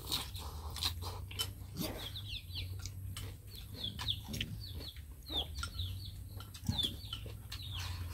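Chickens calling: many short, high chirps that fall in pitch, repeated throughout, over light clicks of chopsticks against porcelain rice bowls.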